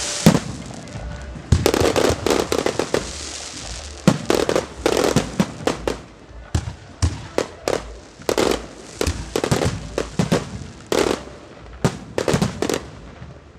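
Aerial fireworks show: shells bursting in rapid clusters of sharp bangs, with a crackling hiss of the bursts between them.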